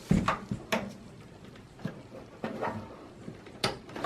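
Cable connectors being plugged into a desktop PC motherboard inside the metal case: a handful of short, scattered clicks and knocks of plastic on metal, the loudest right at the start.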